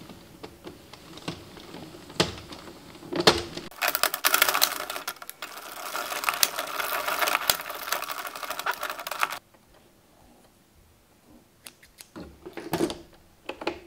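Addi Express circular knitting machine being hand-cranked, its plastic needles clattering rapidly as they ride around the carriage. A few scattered clicks come first, then a dense rattle starts about four seconds in and cuts off suddenly a few seconds later, leaving only a few light clicks.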